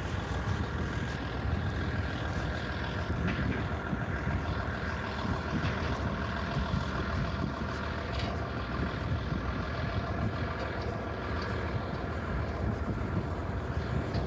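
Heavy engine idling steadily: a low rumble with a steady hum of tones above it, without pause.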